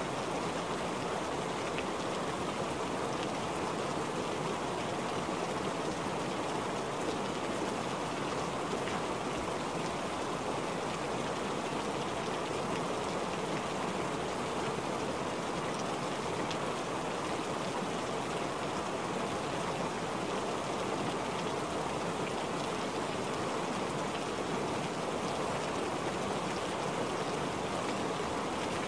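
Steady rain falling on a wet surface, an even hiss of drops that does not let up.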